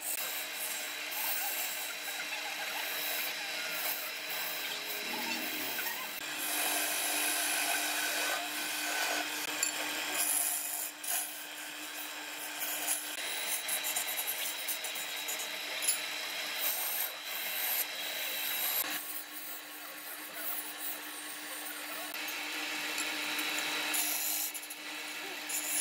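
Wood lathe running with a steady hum while a hand-held turning chisel cuts a spinning wooden chair leg: a rough scraping hiss that swells and eases as the tool is worked along the wood.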